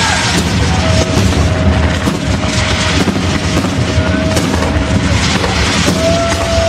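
Aerial firework shells bursting in quick succession over a continuous low rumble, with a steady whistling tone through much of it.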